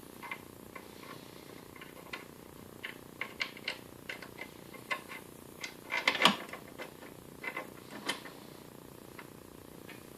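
Irregular small clicks and clinks of metal parts and tools being handled while the belt sander is reassembled, loudest in a short cluster about six seconds in.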